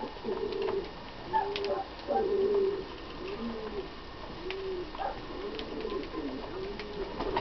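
A dove cooing: low, arching coos repeated about once a second. A few sharp clicks and short chirps sit on top, from lovebirds feeding at a seed tray.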